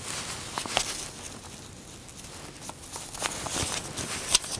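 Foundation paper and cotton fabric pieces being handled and arranged by hand: soft rustling and crinkling with scattered light ticks, busier near the end.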